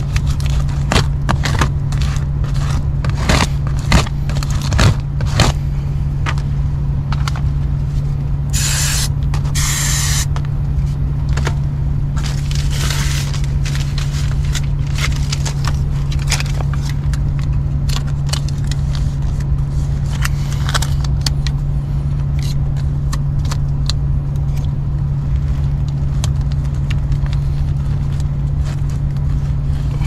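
Heat pump air handler running with a steady low hum, while foil-jacketed flex duct crinkles and scrapes under hands pressing it down to seal a leak at the cabinet connection. Crackling is thickest in the first few seconds, and two short bursts of hiss come about nine and ten seconds in.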